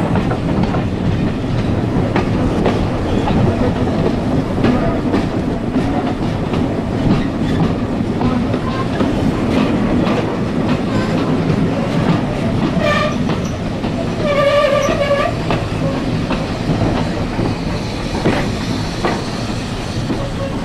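Steam-hauled passenger train running over jointed track, heard from an open carriage window: a steady rumble with wheels clacking over rail joints. About two-thirds through, a short high tone with overtones sounds for about a second.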